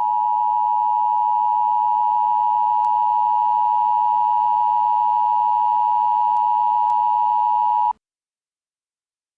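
Emergency alert attention tone: a loud, steady electronic tone just under 1 kHz, held unbroken and cutting off suddenly about eight seconds in.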